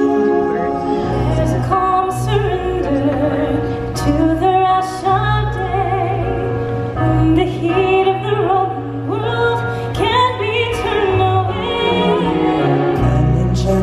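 Music with a sung melody over sustained chords, the bass line coming in about a second in.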